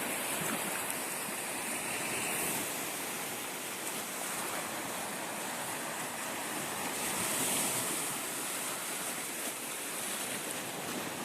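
Black Sea waves washing onto the shore, a steady rush of surf that swells a little about seven seconds in.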